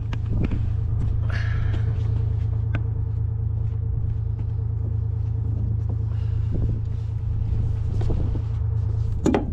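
A boat's motor running with a steady low drone and a faint higher hum, stopping suddenly about nine seconds in with a knock. Scattered light knocks and clatter from gear being handled on deck sit over it.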